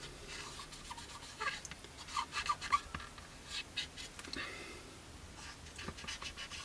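Cotton bud rubbing over the painted plastic of a scale model aircraft, wiping off a dried weathering wash in short, irregular scratchy strokes, with a louder cluster about two to three seconds in.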